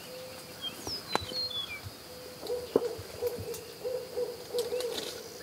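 An owl hooting: one drawn-out low hoot, then from about halfway a rhythmic string of low hoots, with faint small-bird chirps about a second in.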